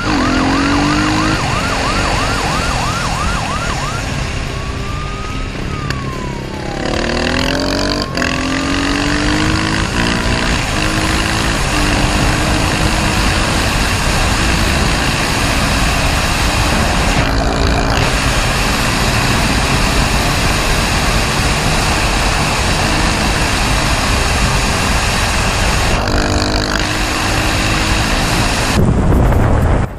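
Dirt bike engine running at speed under heavy wind noise on a helmet camera, its note dipping briefly a few times as at gear changes. A siren wails over it, rising and falling, for the first seven seconds or so.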